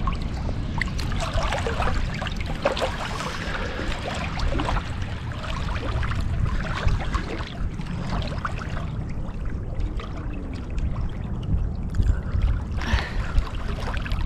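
Lake water splashing and lapping as a swimmer pushes off and swims away from the camera. The splashes thin out about halfway through, over a steady low rumble.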